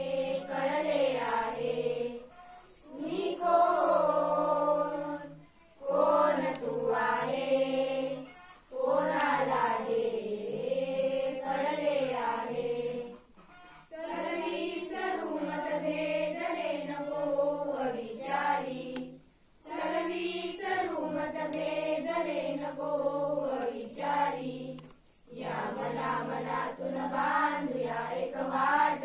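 A group of schoolgirls singing a Marathi awareness song together, unaccompanied, in phrases broken by short pauses.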